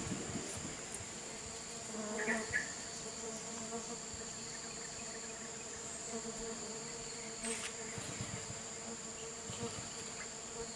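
Stingless bees (kelulut fusco) buzzing steadily around a freshly split colony, over a steady high-pitched insect whine. There is a brief louder handling rustle about two seconds in.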